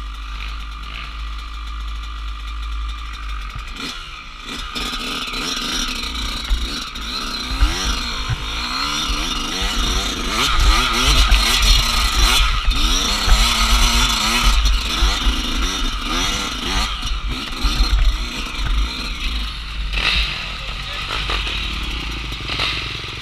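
Dirt bike engine revving up and down repeatedly as it is ridden over rough trail, louder and busiest in the middle, with a steady low wind rumble on the microphone.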